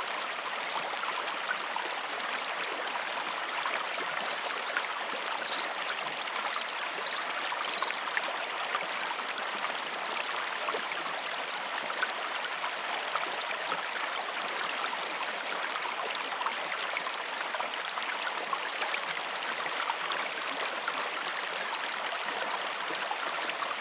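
Steady running-water sound like a flowing stream, an even hiss with no breaks.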